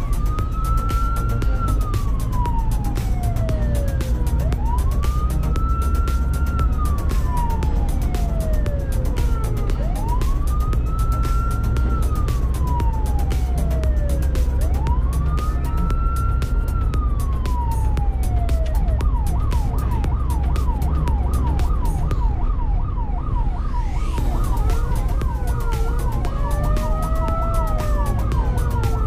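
Ambulance siren on a slow wail, heard from inside the cab over steady engine and road rumble. Four rising-and-falling wails about five seconds apart, then a fast yelp for about five seconds, then wailing again with two pitches at once near the end.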